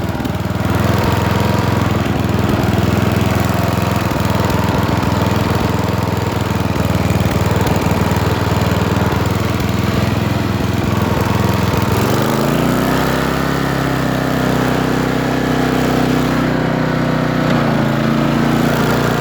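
Riding lawnmower engine, run without a governor, running steadily at high speed; about twelve seconds in the engine note drops to a lower pitch and holds there.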